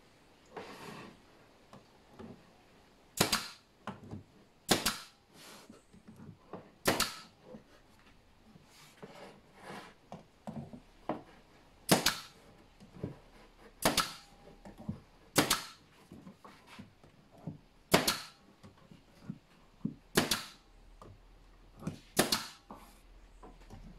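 Bostitch pneumatic nail gun firing fasteners into a pine drawer box: about ten sharp shots at uneven intervals of one and a half to two and a half seconds, with quieter knocks of the wood being handled between them.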